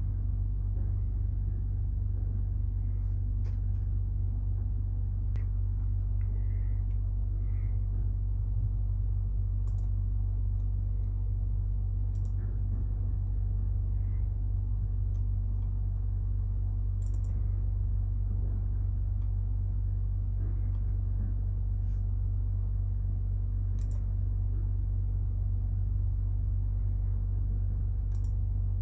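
Steady low rumble and hum that does not change, with a few faint short clicks now and then.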